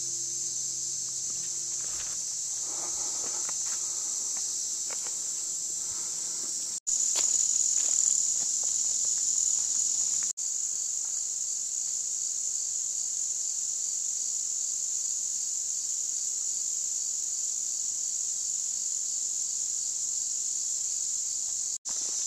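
Steady, high-pitched chorus of summer insects in woodland, louder for a few seconds around the middle and broken by three brief dropouts.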